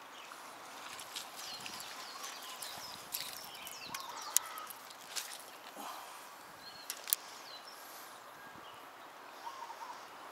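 Lakeside outdoor ambience: a soft steady hiss with scattered short chirps and a few sharp clicks, the loudest about four and seven seconds in.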